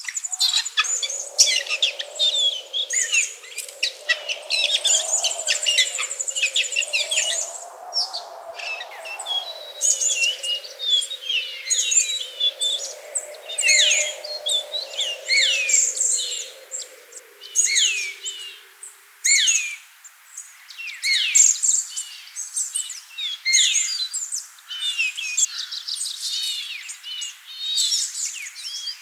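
Mixed chorus of wild birds singing: many overlapping chirps and short sweeping whistles, with a high buzzing trill early on. A low wavering hum runs underneath and fades out about two-thirds of the way through.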